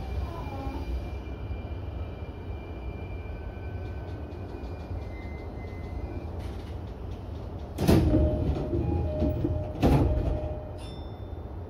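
E233-series commuter train standing at a platform with a low steady hum, then about eight seconds in two loud hissing blasts two seconds apart with short beeps between them: the doors closing.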